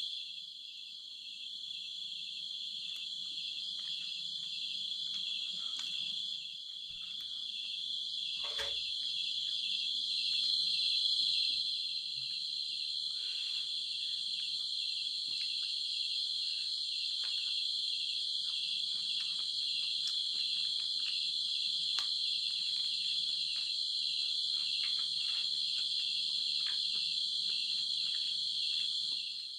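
Night insects chirring steadily in a dense, high-pitched chorus with a fast pulse. Faint clicks and rustles of food being handled by hand come through underneath.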